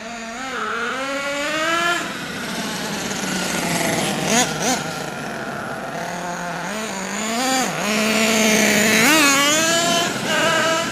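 Small glow-fuel nitro engine of a HotBodies Lightning GTX2 RC truck, running on one of its two engines and revved up and down in repeated blips, its pitch rising and falling. The owner hears it as still running a little lean.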